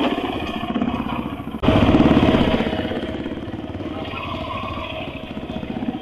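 Motorcycle engine running at low speed, with a burst of throttle about one and a half seconds in that then eases off gradually as the bike rolls along.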